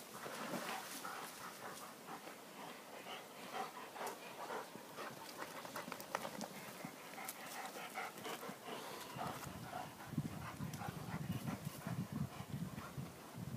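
Czechoslovakian wolfdogs moving about on a dirt trail: panting, with many short taps and rustles of paws and feet. A deeper, rougher scuffling comes in the last few seconds as the dogs play together.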